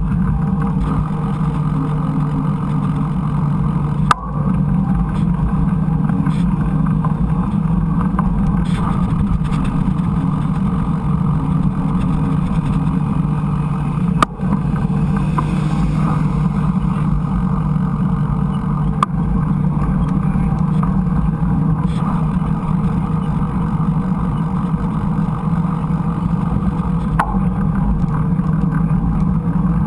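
Ride noise picked up by a GoPro on a mountain bike: a steady low rumble of wind and tyres on the trail, with two sharp knocks about four and fourteen seconds in.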